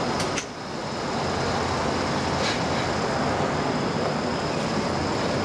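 Steady road noise of a moving car, a continuous rumble and hiss of tyres and wind, with a brief dip in loudness about half a second in.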